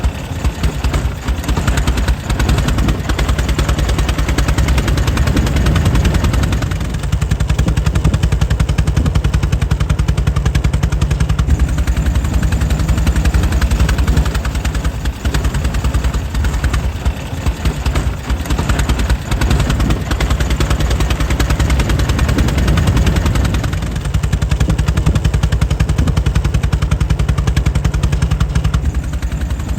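Air-cooled 1904 Mitchell engine running steadily, its firing strokes in a fast, even, rhythmic chatter.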